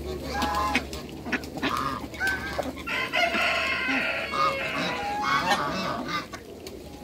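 Brahma chickens clucking and squawking among a mixed poultry flock: a string of short calls, with a louder, longer call about three seconds in and another near five and a half seconds.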